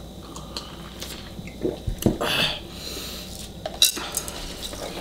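Tableware handling: a drinking glass put down and the paper lid of an instant-noodle cup peeled open, giving several sharp clinks and knocks and a half-second scratchy rustle about two seconds in.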